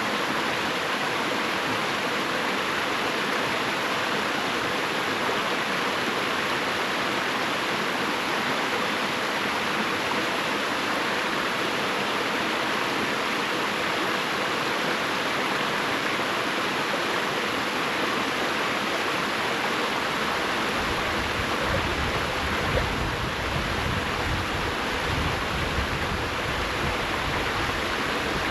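River water rushing over rocks, a steady even splash and hiss. About two-thirds of the way through, a deeper low rumble joins it.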